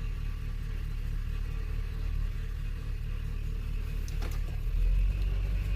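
1978 Corvette's V8 running as the car is driven on the road, a steady low rumble that gets louder about five seconds in. A brief click about four seconds in.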